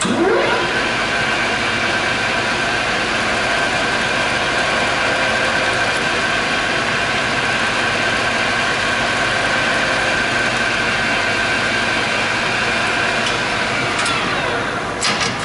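SuperMax 13" x 40" gap bed engine lathe's spindle and gear train started up, likely in reverse, and running under power with a steady mechanical whine. It spins up over the first half-second, then slows and winds down near the end, with a couple of sharp clicks just after.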